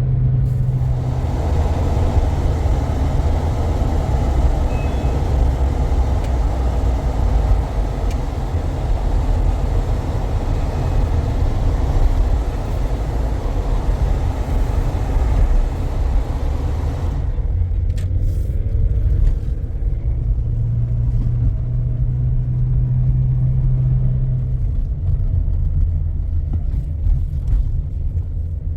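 Motor vehicle driving: a steady low engine and road rumble. The higher road hiss falls away about two-thirds of the way through, leaving the low hum.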